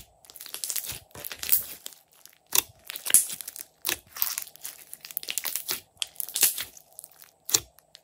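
Hands squeezing, pressing and stretching glossy slime mixed with foam beads, giving irregular bursts of sticky crackling and clicking with short pauses between them.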